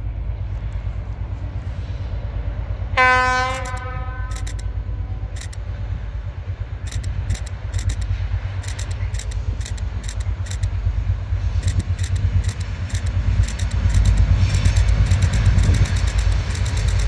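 Class 742 diesel locomotive approaching with a freight train: one short horn blast about three seconds in, then many wheel clicks over rail joints and points. A low rumble runs underneath and grows louder near the end as the locomotive comes closer.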